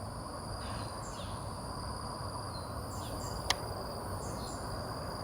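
Insects trilling steadily in two high, continuous tones, with a few short descending bird chirps and one sharp click about three and a half seconds in.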